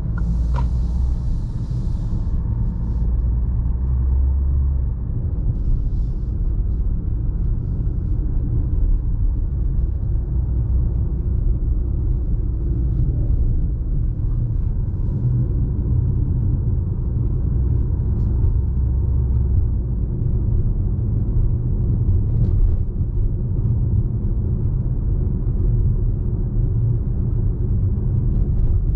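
Fiat Toro pickup's 2.0-litre diesel engine running steadily while driving, a constant low rumble mixed with road noise.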